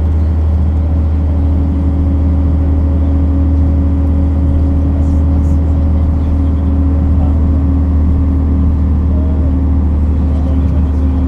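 1966 MAN railbus's diesel engine running steadily with a deep, even drone.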